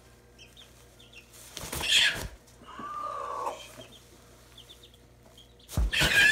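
Gamefowl hen held in the hands flapping her wings: a loud rustle about two seconds in and another near the end, with a short call from her in between. Faint short high peeps, likely chicks, come through now and then.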